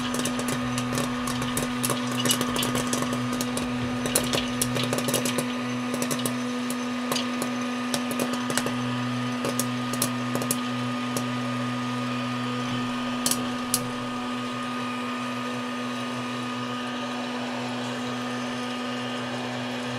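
Hot-air popcorn maker running: a steady, loud motor hum and rush of air, with kernels popping and rattling against the plastic lid. The pops come thick and fast at first, then thin out to a few scattered ones about halfway through as the batch finishes popping.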